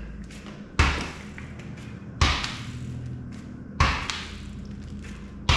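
Four hollow thumps, about a second and a half apart, from an inflated tubeless mountain bike tire on its wheel being bounced on the floor to work the sealant around the bead.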